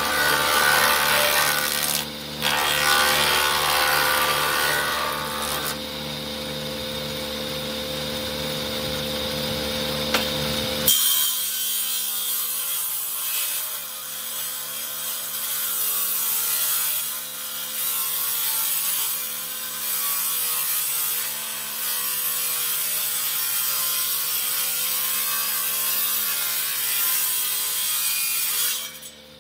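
Power woodworking machine running while a long plank is fed across its spinning cutter: wood being cut, with a steady motor hum underneath. The sound changes abruptly about eleven seconds in and drops away just before the end.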